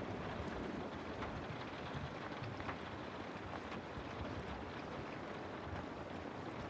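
Steady rain falling: an even hiss of rainfall with scattered sharp ticks of individual drops landing close by.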